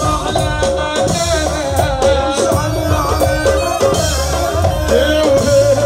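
Live Middle Eastern folk music amplified through a PA: a man singing into a microphone over a drum beat, with a wavering melody line and a held note running under it.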